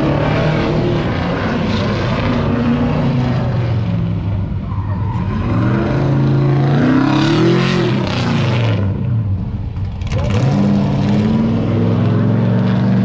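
A car's engine revving hard on an autocross run, its pitch climbing and dropping over and over as the throttle is worked between cones, with one long climb and fall about seven to eight seconds in.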